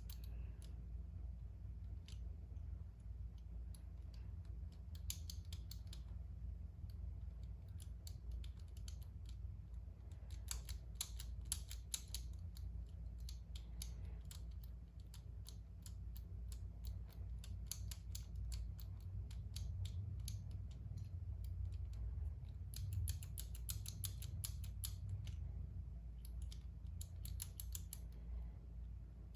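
Master Lock M175 combination padlock's numbered dials being rolled, in bursts of rapid small clicks with pauses between, while the shackle is pulled under tension to feel which dial is loose.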